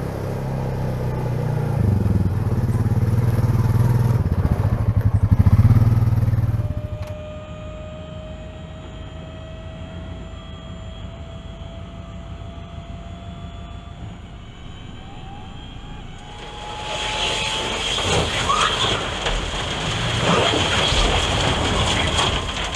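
Diesel engine running with a loud low rumble that drops off sharply about six and a half seconds in; a quieter running sound follows with a faint slowly rising tone, and about sixteen seconds in a louder hiss-like noise comes up.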